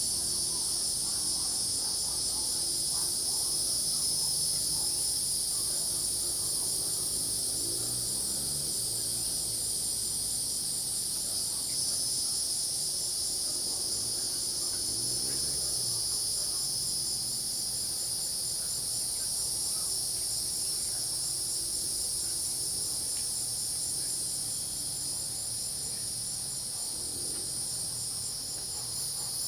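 Dense chorus of crickets and cicadas: several layers of steady, high-pitched trilling, one of them a fast even pulse, with faint low sounds underneath.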